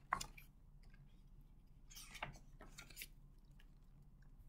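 Paper pages of a hardcover picture book being turned and handled: a crisp page flip right at the start, then a few softer rustles about two and three seconds in.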